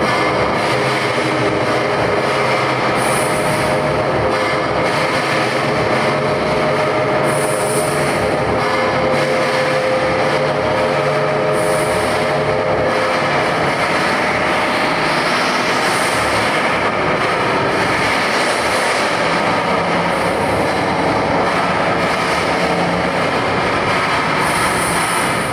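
Loud, continuous rushing and rumbling noise with a few faint held tones in the middle, and a high hiss that swells and fades about every four seconds.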